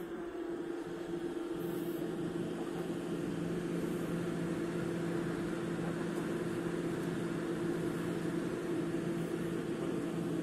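Steady machine hum with a low drone joining about a second and a half in. It grows louder over the first two seconds, then holds steady.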